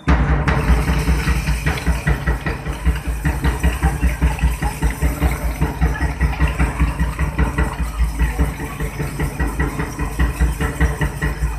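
Mass school dumbbell drill: many children striking hand dumbbells together in time over a steady drum beat, a loud rhythmic clatter that starts suddenly.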